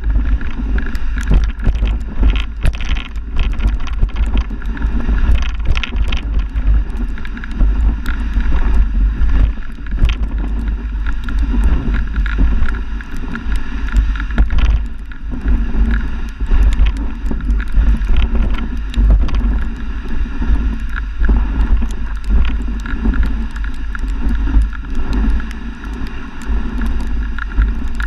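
Heavy wind rumble on the microphone over a continuous rushing noise with scattered knocks and rattles, as from riding a moving dog sled over snow.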